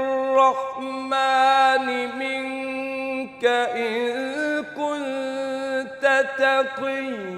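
A man reciting the Quran in melodic tajweed, drawing out long held notes with brief breaks between them and quick ornamental turns, and his voice swoops down in pitch near the end.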